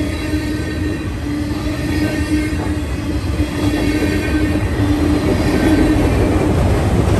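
Freight train of tank cars and autorack cars rolling past close by: a steady low rumble of wheels on rail. Over it runs a low droning tone that breaks off and returns every second or so. The train grows a little louder toward the end.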